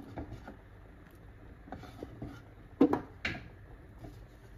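Kitchenware clattering against the cooking pot: a few faint clicks, then two sharp clinks about a third of a second apart near the three-second mark.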